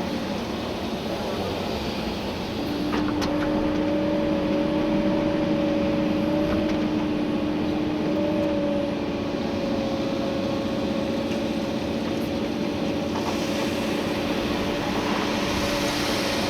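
Komatsu PC290-11 excavator heard from inside the cab: its six-cylinder diesel engine and hydraulics running steadily under digging load. A steady whine comes in about three seconds in and dips slightly in pitch a few times, with a couple of faint knocks.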